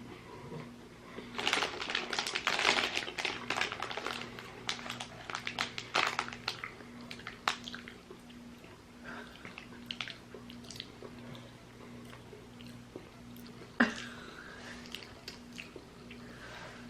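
Close crackling and clicking from candy being handled and eaten. The sounds are densest in the first half and thin out later, with one sharp click near the end, over a steady low electrical hum.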